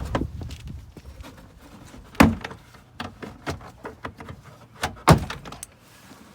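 Push-pin clips of a 2008 Chevy Equinox door trim panel snapping loose as the panel is pried off: two loud pops about three seconds apart, with smaller clicks and scraping between.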